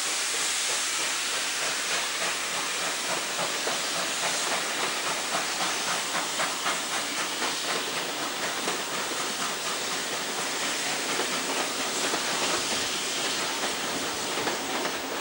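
NSW steam locomotive 3801, a streamlined C38-class Pacific, hissing steam as it pulls a passenger train away, with a rhythmic clatter of about four beats a second as the train rolls past.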